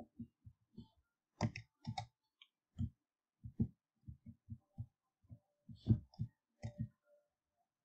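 Computer mouse clicking at an uneven pace, about two dozen soft clicks with a few sharper ones among them.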